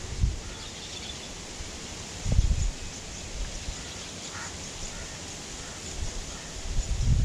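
Outdoor background by a stream with faint bird calls: a few high chirps about half a second in and a short call about four seconds in. Brief low rumbles hit the microphone about two seconds in and again at the end.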